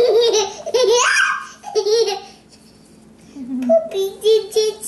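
A toddler laughing in short, high-pitched bursts. There are two bouts of giggles, with a pause of about a second in the middle.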